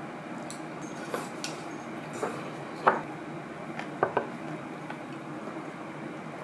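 Chopsticks and bowls clicking and knocking against each other and the wooden tray during a meal: about half a dozen light clicks, the loudest about three seconds in, over steady background noise.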